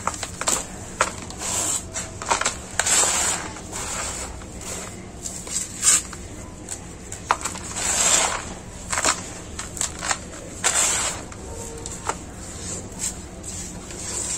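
Handfuls of dry, gritty soil mixed with small pebbles being dropped and crumbled onto a heap of the same. Each falling handful makes a rushing, grainy hiss, with sharp clicks from the pebbles landing.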